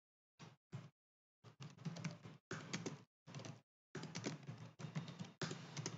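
Typing on a computer keyboard: quick runs of keystrokes in short bursts with brief pauses between them.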